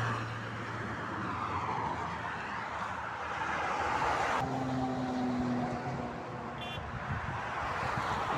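Motorway traffic: vehicles passing at speed, tyre and engine noise swelling and fading. About halfway through, one vehicle's steady engine note stands out for a second or two.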